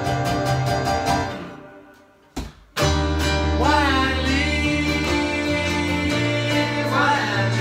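Electric keyboard and acoustic guitar playing a song live. The music dies away a little over a second in to a brief near-silent break with a short knock, then both instruments come back in with two male voices singing.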